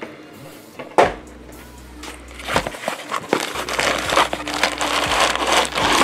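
Cardboard figure packaging being handled and pulled from its box: a sharp knock about a second in, then dense rustling, scraping and crinkling of cardboard and plastic.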